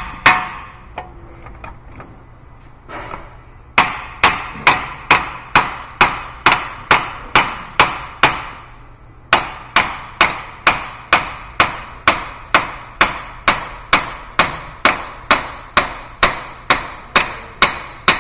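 Hammer blows on the end of a 2013 Nissan Altima's left front CV axle shaft, driving it back out through the wheel hub. Two sharp metal-on-metal strikes at the start, then after a pause of about three seconds a steady run of about two and a half blows a second, with one short break about halfway.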